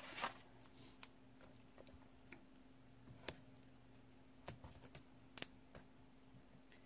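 Near silence with a dozen or so faint, irregular clicks and taps as fingertips press paper stickers down onto a spiral-bound planner's page, over a faint steady hum.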